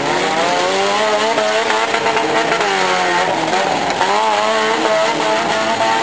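Several small demolition-derby cars' engines revving up and down over one another at full throttle, with knocks from the cars ramming each other.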